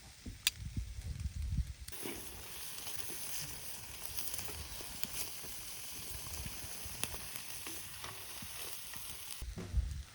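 Food sizzling in a pan, a steady hiss with small crackles. It starts about two seconds in, after a few low knocks and handling sounds, and cuts off suddenly near the end.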